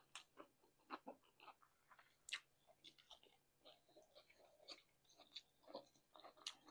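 Faint close-miked eating sounds: irregular wet mouth clicks and soft crunches of a cheddar hot link sandwich and a piece of green pepper being chewed, the loudest a little over two seconds in.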